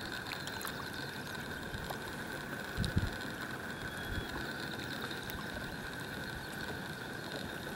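Steady background noise with no clear source, with one low thump about three seconds in and a few faint ticks.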